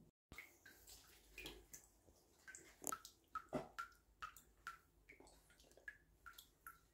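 Water drops falling from a tap into a bowl of water: quiet, irregular plinks, each dropping quickly in pitch, about two or three a second.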